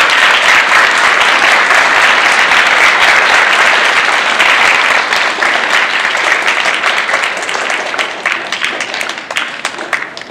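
Crowd of schoolchildren applauding: dense, steady clapping that thins out and dies away in the last couple of seconds.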